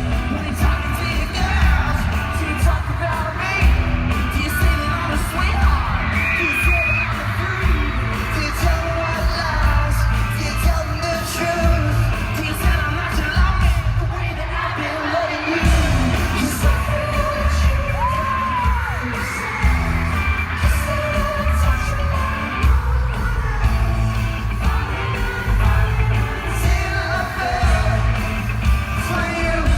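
A live pop-rock band plays a song with singing, a heavy pulsing bass and drums, while fans in the crowd yell.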